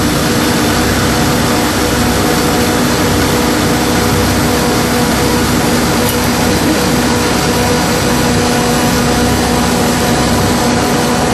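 Two-stage plastic granulation line running: a loud, steady machine noise with a constant hum in it.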